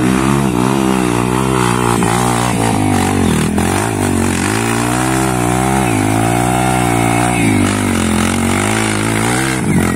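Trail motorcycle engine revving hard on a steep hill climb, its pitch rising and falling again and again as the throttle is worked.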